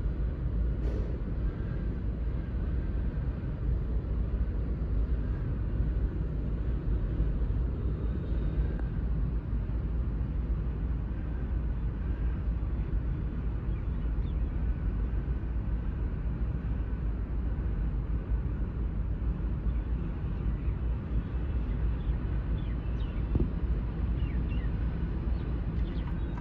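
Steady low rumble of distant road traffic, with a few faint short chirps in the second half.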